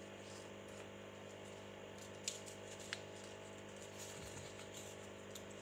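Quiet room tone with a steady low electrical hum, and two faint sharp ticks about two and three seconds in.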